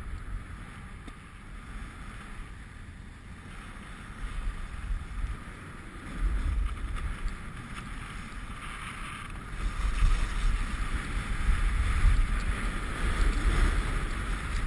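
Wind buffeting a moving action camera's microphone as a strong low rumble, with the hiss of riding over groomed snow. Both get louder about six seconds in and again from about ten seconds in, as the ride speeds up.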